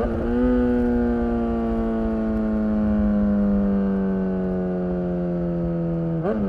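BMW S1000R's inline-four engine running through a full Akrapovic exhaust while riding, its note sinking slowly and evenly in pitch as the engine eases off. The note dips and picks up again briefly right at the start and once more near the end.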